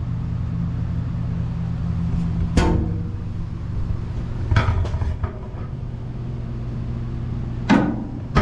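A handful of sharp knocks and clicks over a steady low hum: one about two and a half seconds in, a quick cluster around five seconds, and another near the end.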